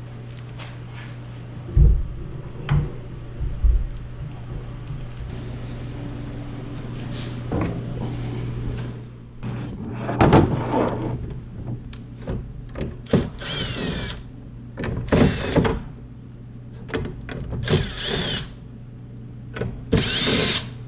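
Power drill run in short bursts, about five times in the second half, its whine rising and falling as it speeds up and slows down. A few sharp knocks in the first few seconds, and a steady low hum underneath.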